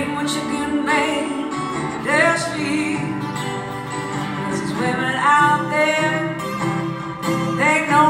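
Two acoustic guitars playing a blues tune live, with a lead line that slides up into its notes every couple of seconds.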